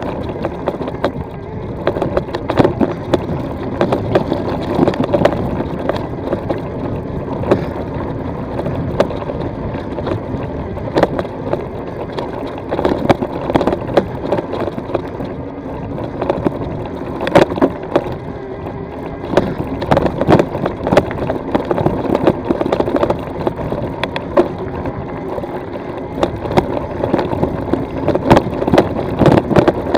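E-bike riding over a loose, stony gravel track: the tyres crunch continuously over the stones while the bike rattles, with frequent sharp knocks as it hits rocks.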